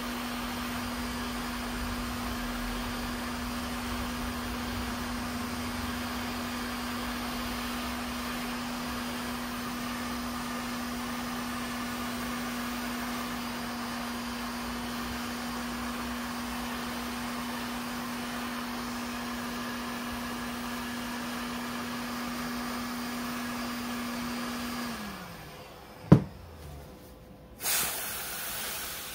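Electric heat gun blowing steadily with a constant hum, heating a scooter crankshaft bearing so it expands. About 25 seconds in, it is switched off and its fan winds down with a falling hum. A single sharp metallic knock follows, then an aerosol spray can hissing near the end.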